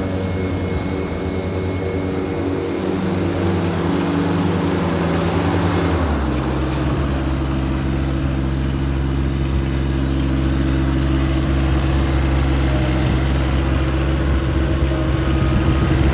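John Deere X740 riding lawn mower's engine running steadily as the mower is driven. About six seconds in, the engine note drops lower and then holds steady.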